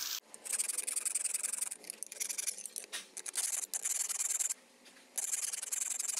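Hand file scraping along the edge of a steel knife blade, in runs of strokes with short pauses between them.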